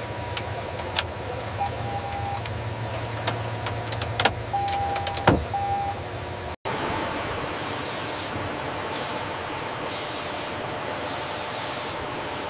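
Switch clicks and short electronic beeps over a low hum, the hum stopping about five seconds in. After a brief dropout, a steady mechanical factory noise with a faint high whine.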